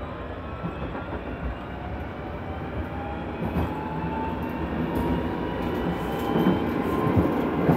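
Electric tram running, heard from inside the passenger car: a rumble of wheels on rails with a whine from the traction motors that slowly rises in pitch as the tram speeds up, growing louder toward the end.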